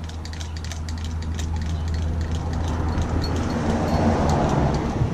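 A steady low mechanical hum with scattered light clicks, and a rush of noise that swells about three to five seconds in.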